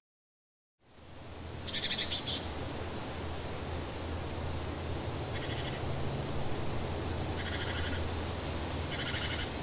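Outdoor woodland ambience fading in after a second of silence: short, rapid bird trills about every two to three seconds over a steady low rush, the first near two seconds in being the loudest.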